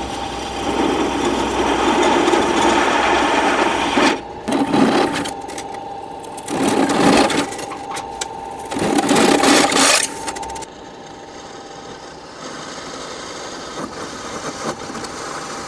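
Step drill bits cutting through sheet metal: a steady motor whine with three louder grinding surges as the bit bites through, between about four and ten seconds in, then a quieter run of drilling.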